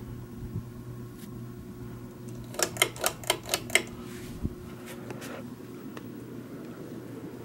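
Old ceiling fan motor running with a steady hum. A little over two and a half seconds in comes a quick run of about six sharp clicks.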